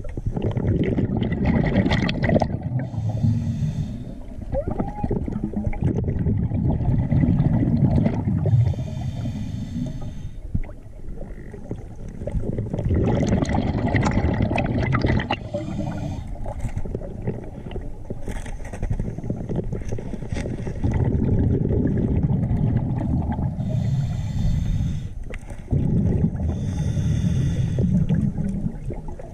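Scuba regulator breathing underwater: long bubbling exhales alternate with short hissing inhales, a few breath cycles in all.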